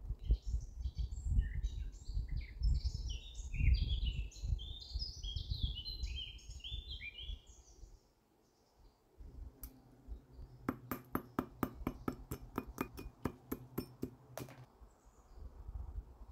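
Birds chirping rapidly over a low rumble. After a short silence, a steady run of evenly spaced clicks, about four a second, over a low hum.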